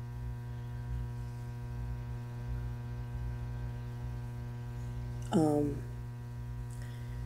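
Steady electrical mains hum with many even overtones, unbroken throughout. About five seconds in, a brief falling vocal sound, like a short "hmm".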